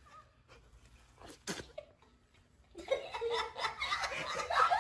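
A few faint clicks, then about three seconds in a burst of loud laughter, with a squealing voice rising in pitch near the end.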